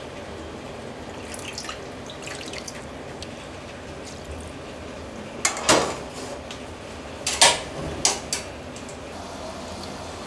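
Braised pork belly and its sauce being handled in aluminium pots: liquid dripping and splashing, then several sharp metal clanks of the saucepan and ladle against the pots on the stove about halfway through and shortly after, over a steady background hiss.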